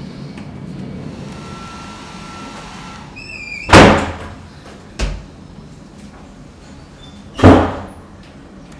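Two loud bangs about four seconds apart, each with a short echo, with a smaller knock between them and a brief squeak just before the first.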